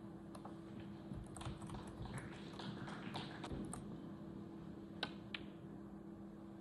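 Light tapping and clicking in the first half, then two sharp clicks about five seconds in, the second a third of a second after the first: snooker balls clicking as the cue tip strikes the cue ball and the cue ball hits a red. A steady low hum runs underneath.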